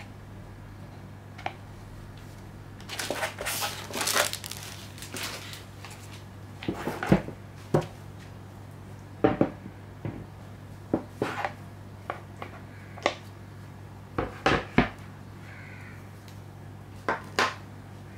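Gloved hands handling an acrylic art panel and its clear acrylic stand: a stretch of rustling and crinkling a few seconds in, then scattered clicks and taps as the acrylic pieces are fitted together and set down. A steady low hum runs underneath.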